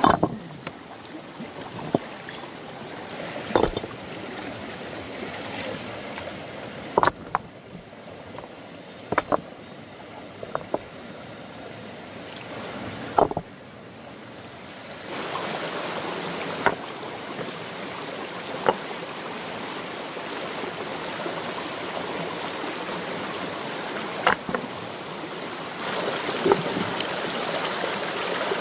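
Steady rush of running water that grows louder about halfway through, with about a dozen sharp knocks at irregular intervals of one to five seconds.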